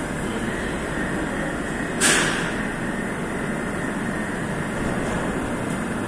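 Moscow metro train standing at the platform with its doors open: a steady hum of the train and station, broken about two seconds in by one sudden, loud hiss that fades within half a second.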